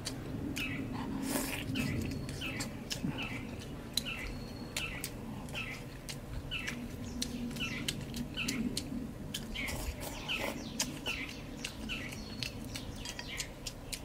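A bird chirping over and over in short falling chirps, about two a second, with close-up chewing and lip-smacking from someone eating.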